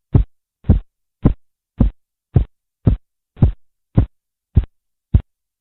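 Korotkoff sounds heard through a stethoscope as a blood pressure cuff is let down: about ten even, dull thumps a little under two a second, growing shorter toward the end.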